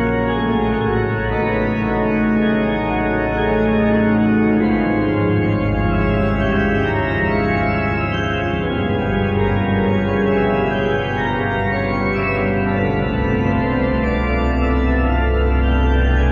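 The grand pipe organ of Chartres Cathedral playing an improvised theme and variations: full chords of many held notes over deep pedal bass. The pedal bass drops away for a few seconds at a time and comes back strongly near the end.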